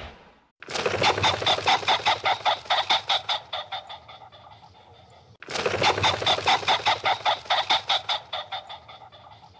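Domestic fowl calling in two long runs of rapid, even clucks, each run starting loud and fading away.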